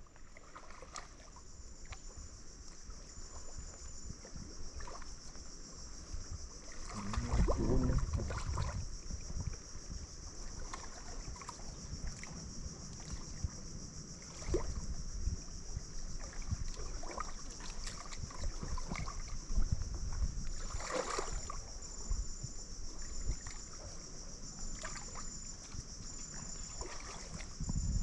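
Steady high-pitched chorus of insects, with small irregular water sounds and knocks of something moving in shallow water; a louder stretch of splashing and stirring comes about seven seconds in, and a sharp splash about twenty-one seconds in.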